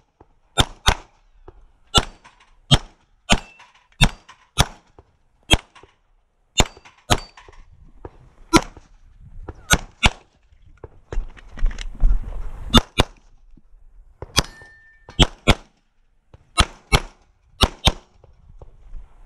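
Rapid pistol fire from a 9mm Glock 17 MOS, many shots mostly fired as quick pairs, with short pauses between target arrays. A few seconds of low rumbling noise come between shots near the middle, and a brief ringing note follows a little after that.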